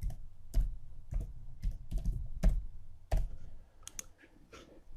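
Keys tapped on a computer keyboard as a password is typed: a quick, uneven run of about a dozen clicks that stops a little past three seconds in, followed by a few faint ticks. Heard through an IP camera's microphone.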